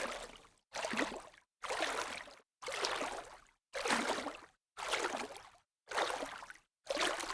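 Light water splashes, one about every second, each starting sharply and dying away within under a second, with silence between them.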